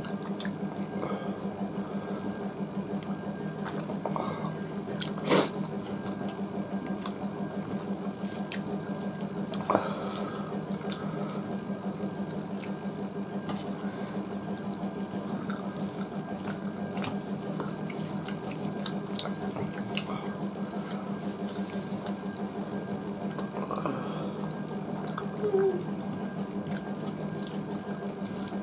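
Wet eating sounds: fingers squishing rice and curry on steel plates and chewing, with many small clicks and smacks over a steady low hum. A few louder knocks stand out, about five, ten and twenty-five seconds in.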